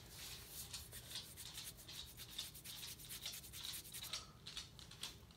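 Faint rubbing and scratching: a quick, irregular series of short scrapes, like something brushing against a surface close to the microphone.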